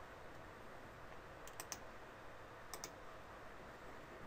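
Computer mouse clicks: two pairs of short, sharp clicks about a second apart, over a faint steady hiss.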